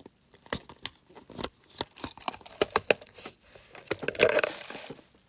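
Clear plastic cup lid being fitted onto a plastic cup and a plastic straw pushed through it: a run of sharp plastic clicks and crackles, with a louder crinkling scrape about four seconds in.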